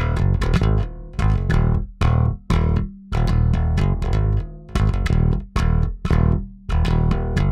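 Warwick Vampyre SN-5 five-string electric bass played through its active MEC single-J neck pickup alone, with the bass and treble EQ all the way up. It plays a riff of quickly plucked notes in short phrases with brief gaps between them.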